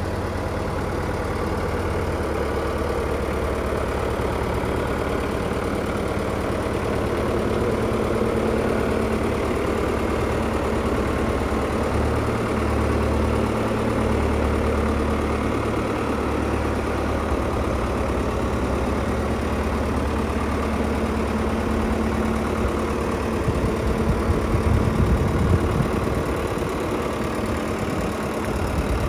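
Diesel engine of a Gregoire G85 self-propelled grape harvester idling steadily, an even low hum, with a couple of seconds of uneven low rumbling near the end.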